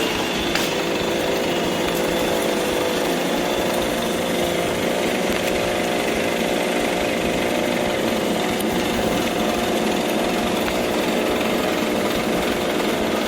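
Chainsaw running steadily at a constant speed while tree branches are cut back from power lines.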